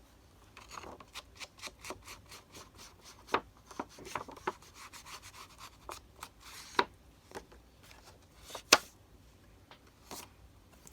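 Paper and craft materials being handled and rubbed on a work surface, with scattered sharp taps and clicks; the sharpest comes near the end.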